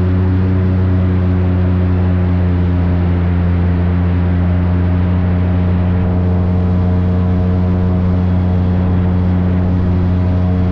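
Airboat engine and large air propeller running at a steady cruising speed, a loud, even drone.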